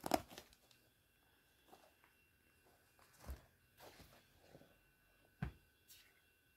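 Faint handling noise of used sneakers being picked up and turned over by hand: a few short soft knocks, the loudest right at the start, with light rustling between and a faint steady high hum underneath.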